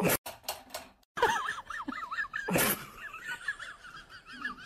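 Cats crunching dry kibble from a bowl, heard as scattered clicks, with many short warbling high chirps over it. A louder, fuller sound comes about two and a half seconds in.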